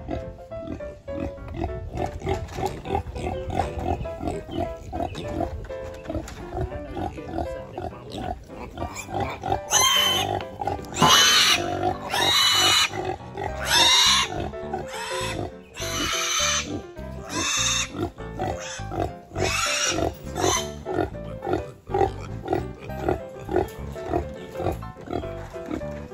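Kune Kune piglet squealing as it is picked up and carried, a run of loud, high screams through the middle. Background music with a steady beat runs underneath.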